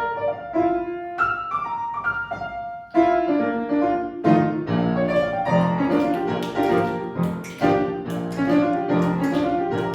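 Piano introduction in boogie-woogie style: a few single notes, then from about three seconds in a steady rhythmic accompaniment of chords over a walking bass, with light percussion on the beat.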